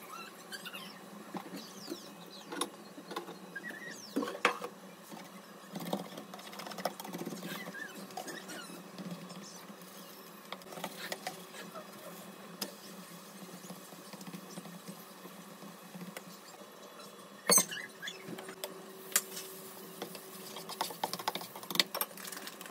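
Pancake batter and butter sizzling in a non-stick frying pan: faint, irregular crackles and small pops, with a spatula scraping and tapping against the pan. There is one louder knock about 17 seconds in.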